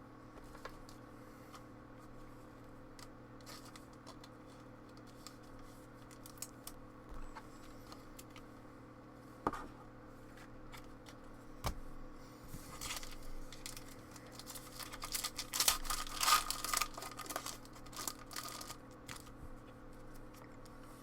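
Trading-card pack wrapper crinkling and tearing open, with light clicks of cards being handled; the crinkling is loudest for several seconds past the middle. A steady low hum runs underneath.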